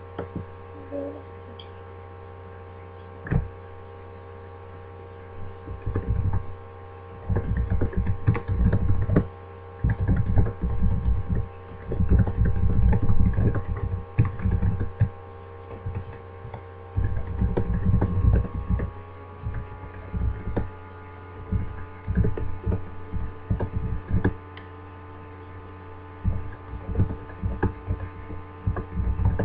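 Steady electrical hum from the recording device, with bursts of dull taps and knocks through the middle as a message is typed on a keyboard. The typing comes through the device's body.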